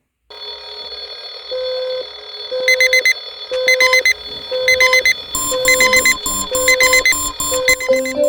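Alarm clock beeping in groups of rapid beeps about once a second, over a steady high tone and a short lower note repeating about once a second; more tones and a low pulse join about five seconds in.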